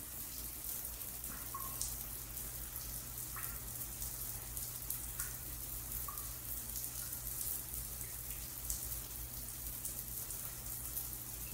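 Shower water running: a steady hiss of falling water on tile, with a few faint short plinks of drips and a low steady hum underneath.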